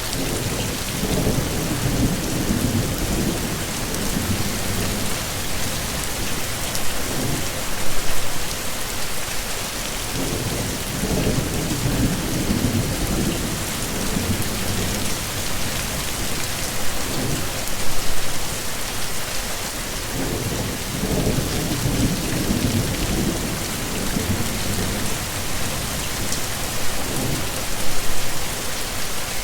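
Heavy rain falling steadily, with low rolling rumbles of thunder that swell and fade several times. Three brief louder spikes come about ten seconds apart.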